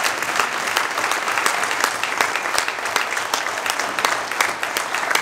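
Audience applauding: a dense, steady patter of many hands clapping in a large hall.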